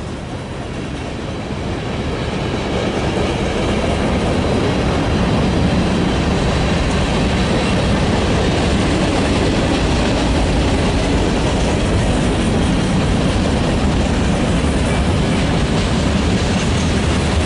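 Train rolling past close by, the steady rumble and clatter of wheels over the rails. It builds over the first few seconds, then holds steady and loud.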